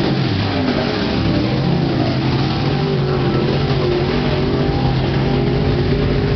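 Several dirt-track Pro Stock race cars' V8 engines running hard around the oval. Their overlapping engine notes rise and fall as the cars pass and accelerate, and one note drops in pitch as a car goes by close in the first second.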